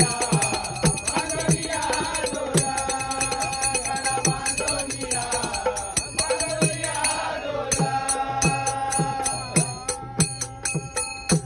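Men singing a Marathi devotional bhajan in chorus, with a two-headed hand drum keeping a steady beat and small brass hand cymbals (taal) ringing on the rhythm.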